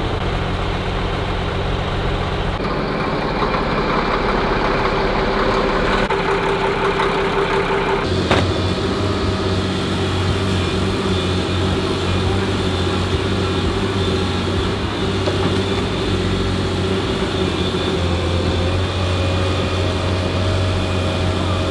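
Heavy diesel equipment engines running steadily. A single sharp click comes about eight seconds in, and from then on a deeper engine note runs strongly.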